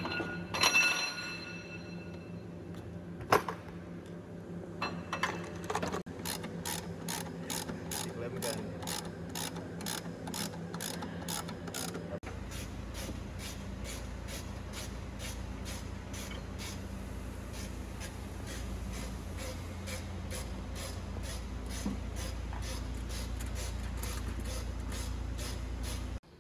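A hand ratchet wrench clicks steadily, about three clicks a second, as bolts on a motorcycle's timing plate are turned, after a few sharp knocks of tools. A low steady hum comes in about halfway through.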